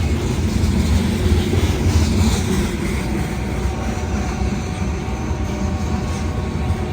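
BNSF local freight train passing close by, a steady, loud low rumble of the diesel locomotive and rolling rail cars, with the horn tone now faint.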